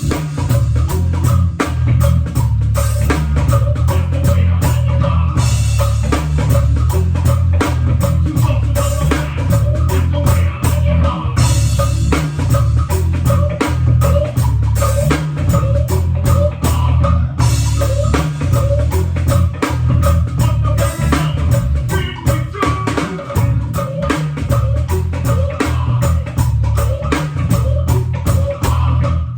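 Live band playing an instrumental groove, drum kit and heavy bass to the fore, with guitar.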